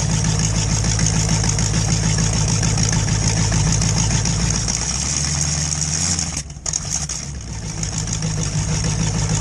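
Demolition derby truck's engine idling steadily, heard from inside the stripped cab. About six and a half seconds in the sound briefly dips and the engine note shifts, then the idle steadies again.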